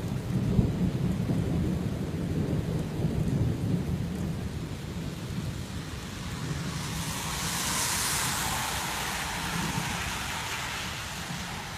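Thunder rumbles low and long over steady rain. The rumble fades over the first half, and a broad hiss swells about seven seconds in, then dies away toward the end.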